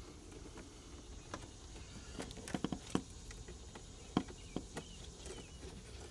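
Scattered light clicks and taps of a hand tool, an 8 mm socket or flat screwdriver, working loose small fasteners in the engine bay, with a few sharper clicks around the middle.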